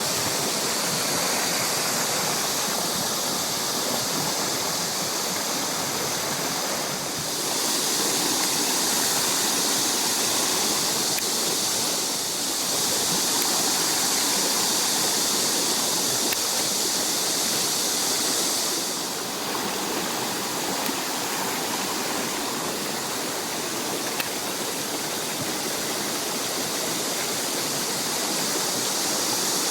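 Mountain valley stream running after rain: a steady rush of flowing water, its loudness stepping up and down slightly a few times.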